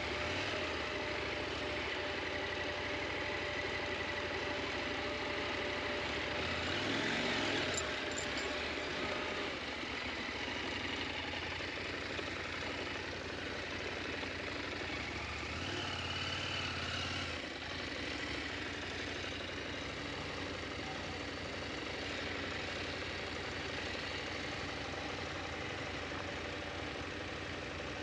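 KTM 890 Adventure's parallel-twin engine running steadily. The engine note dips and rises about seven seconds in, and swells again briefly around sixteen seconds.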